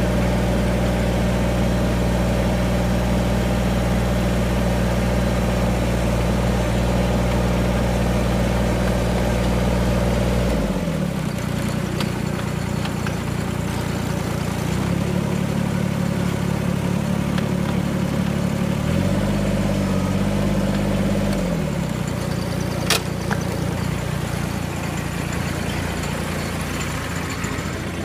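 Kubota BX24 compact tractor's diesel engine running at a steady speed while its front loader is worked. The engine drops in pitch about ten seconds in and rises and falls again in the second half.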